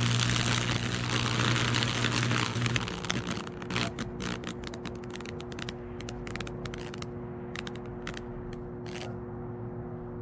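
Microwave-oven-transformer fractal burner arcing through wet oak: a loud electrical buzz with hissing, crackling burning for about three seconds. The buzz then stops and the wood gives scattered sharp crackles and snaps that thin out over the next several seconds as it smoulders.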